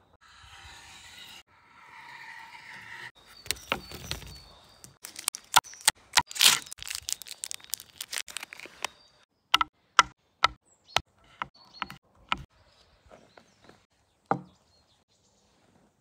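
Hand-handling sounds of food and its plastic packaging on a wooden table: a soft rustle, then crinkling and crackling of plastic wrappers and a string of sharp clicks and taps that thin out toward the end.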